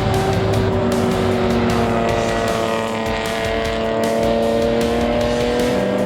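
BMW race car's engine running hard under load, its pitch rising slowly and steadily as it pulls through a gear.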